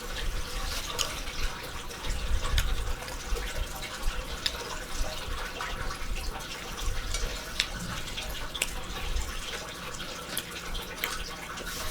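Steady trickle of running water, with scattered small clicks.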